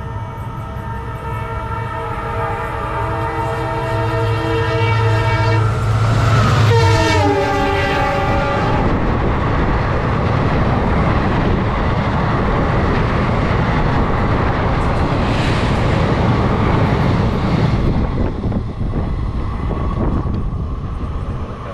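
An oncoming Indian Railways train sounding its multi-tone locomotive horn continuously as it approaches on the adjacent track, the horn's pitch dropping sharply as the locomotive passes about seven seconds in. Then the loud, steady rush and wheel noise of its coaches passing close by for about ten seconds, easing off near the end as the train clears.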